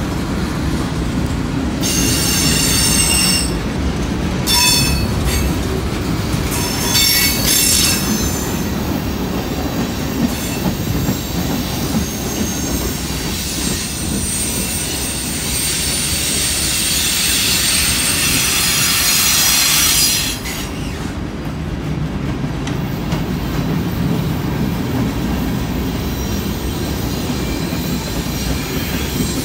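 Freight cars rolling past close by with a steady low rumble of wheels on rail. High-pitched wheel squeals come in bursts over the first several seconds. Then a long, rising hissing screech builds and cuts off abruptly about two-thirds of the way through, leaving the rumble.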